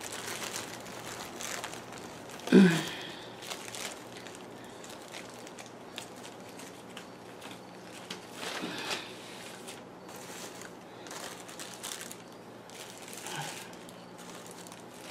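Plastic bags crinkling and rustling as bagged plant cuttings are handled and moved about, with scattered soft rustles and ticks. A short vocal sound falling in pitch comes about two and a half seconds in.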